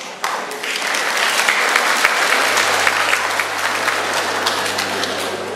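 A crowd of students clapping together in a gymnasium hall. The applause starts suddenly and runs on densely, easing a little near the end.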